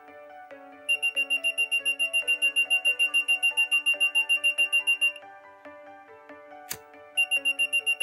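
Active piezo buzzer of a homemade thermistor fire-alarm circuit beeping rapidly at a high pitch, about eight beeps a second: the alarm is triggered by heat from a lighter flame on the thermistor. It sounds from about a second in until about five seconds, stops, and starts again near the end, just after a sharp click.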